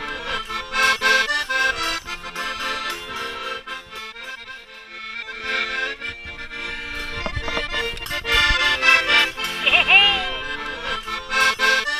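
Accordion music, with a quieter passage midway and an opening phrase that comes back near the end.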